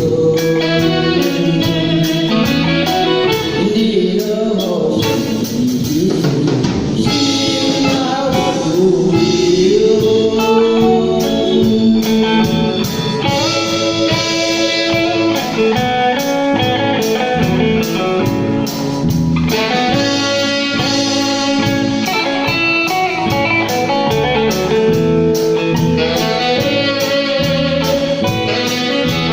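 Music: a song with guitar and a steady drum-kit beat, with a voice singing in places.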